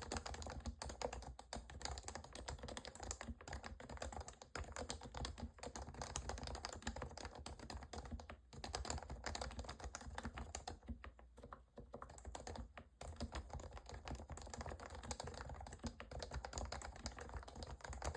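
Fast continuous typing on a lubed HHKB Professional Classic Topre keyboard, the electro-capacitive rubber-dome switches giving soft, rounded keystrokes, with a few short pauses.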